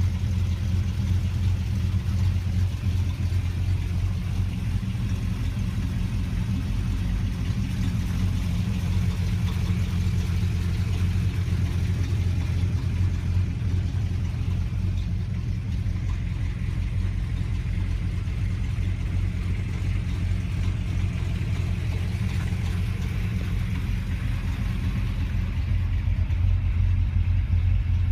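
1957 Chevrolet Bel Air's engine idling steadily with a deep, even rumble, a little louder near the end.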